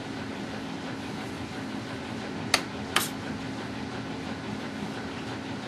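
Two sharp clicks about half a second apart, midway through, over a steady hum and hiss.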